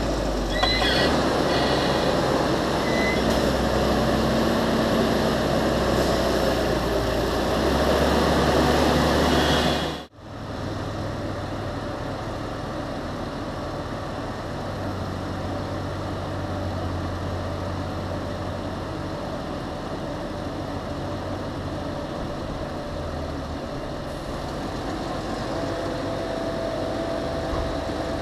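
Large Fendt Vario tractor's diesel engine working hard while pushing maize silage on the clamp. About ten seconds in the sound cuts off abruptly and comes back as a quieter, steadier engine running.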